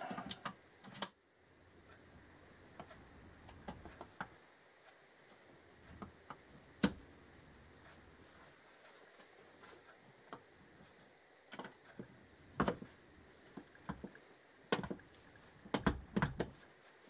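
Scattered sharp metallic clicks and clunks, a few seconds apart with a cluster near the end, as gloved hands shift the gearbox shafts and gears of a Kawasaki KZ650 engine in its open aluminium crankcase.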